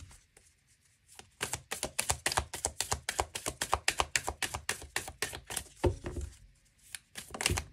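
A deck of cards being shuffled in the hands: a quick run of crisp card slaps, about seven a second, for about four seconds, then two duller knocks.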